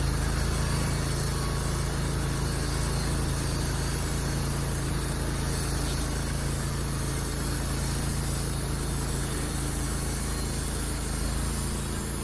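Wood-Mizer LT15 portable band sawmill running steadily at full speed, its blade cutting through a log dry, without water lubrication.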